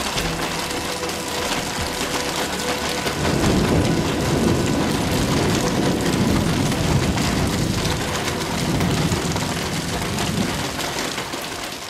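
Heavy rain pouring steadily. A low rumble swells about three seconds in and carries on for several seconds before easing off.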